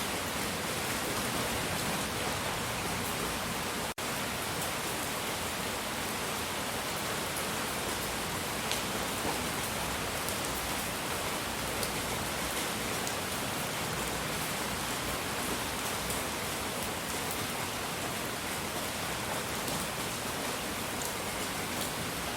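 Steady, even rain-like noise hiss spread across low and high pitches, with faint crackle in the highs. There is a momentary dropout about four seconds in.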